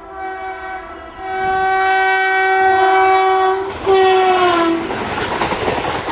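Train air horn sounding a long blast of about two and a half seconds, then a shorter second blast whose pitch sags as it ends. A rushing noise follows near the end.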